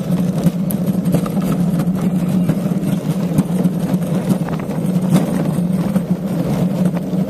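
Downhill cart's wheels rolling fast on a concrete track: a steady low rumble with a few light clicks.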